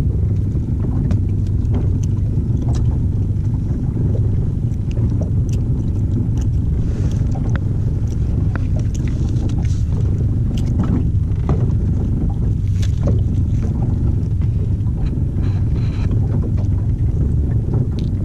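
A steady low rumble aboard a fishing boat, with scattered clicks and taps as a small fish is handled on the hook.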